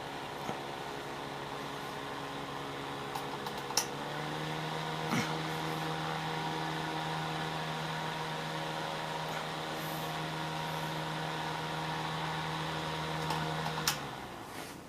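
Dulton desk fan running on its test run after a motor repair, with the blades now turning: a steady electric motor hum. About four seconds in there is a click, and the hum steps up higher in pitch and louder. Near the end another click comes, and the hum falls away as the fan winds down.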